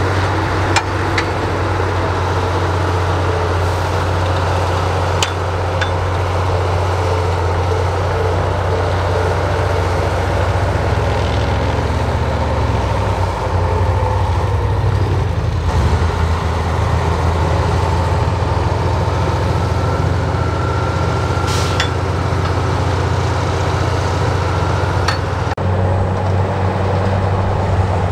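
Heavy diesel earthmoving machine running steadily with a deep low hum, with a few sharp clicks and knocks over it. The sound changes abruptly near the end.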